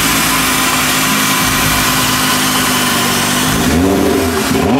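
Drift-built Nissan GT-R's engine running loud and steady, then revved up and down twice in quick blips near the end.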